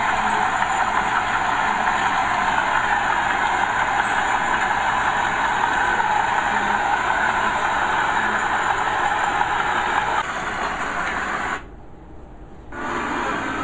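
Heavy earthmoving machinery running steadily with a diesel engine roar. About ten seconds in the sound steps down, breaks off for about a second, then resumes quieter.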